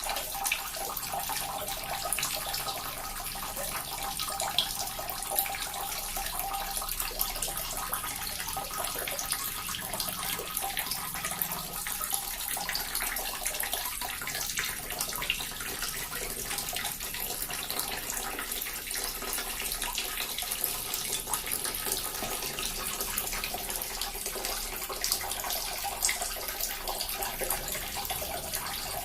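Small water fountain, water splashing and trickling steadily into its basin, with many small irregular drops.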